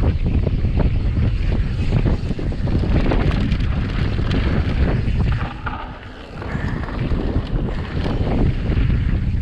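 Wind buffeting the camera microphone as a mountain bike descends a dirt trail at speed, with the bike rattling and knocking over the rough ground. It briefly goes quieter about six seconds in.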